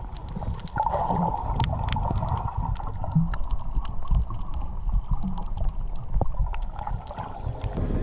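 Muffled underwater sound picked up by a GoPro in its waterproof housing while snorkeling: a steady low rumble of moving water with many scattered sharp clicks.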